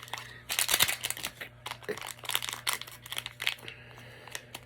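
Crinkling and tearing of a mystery-pin blind box's packaging as it is opened, a dense crackly rustle that thins out near the end.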